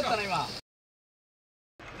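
A man's voice briefly at the start, then an abrupt drop to complete silence for about a second, then a steady outdoor background hiss.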